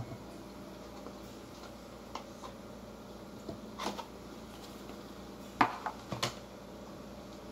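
Handling a takeaway food box and a plate on a table: light clicks and rustles, with a few sharper knocks about five and a half to six seconds in as the box is set down, over a faint steady hum.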